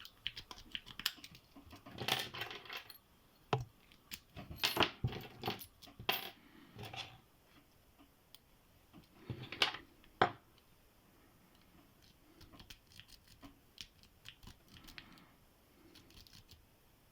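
A steel lock pick raking in the keyway of a Qualtec padlock, with light metallic scratching and clicking of the pins. Louder clattery rattles of the metal lock and tools come in short clusters, about four times.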